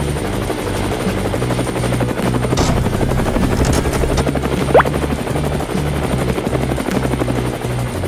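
Cartoon helicopter sound effect: rotor chopping steadily as it hovers and lifts a load. A short rising whistle sounds a little past the middle.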